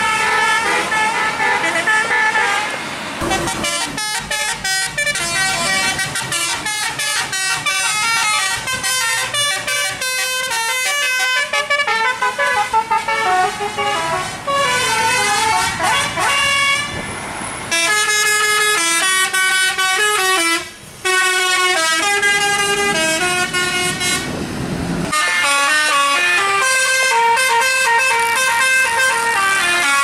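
Tour-bus Basuri telolet horns with roof-mounted trumpets, playing one quick multi-note melody after another, loud and in stepped tones, with a brief break a little past the two-thirds mark.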